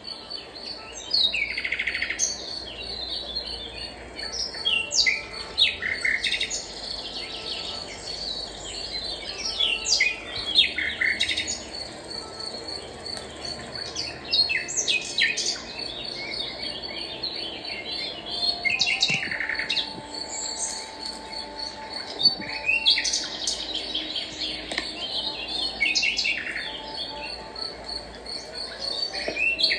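Small birds chirping and calling in repeated short phrases, over a steady, evenly pulsing high insect trill.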